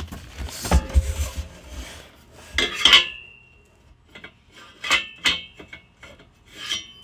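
Metal exhaust header parts being handled: a rustle, then several knocks and clinks of metal on metal, one leaving a short ring about three seconds in.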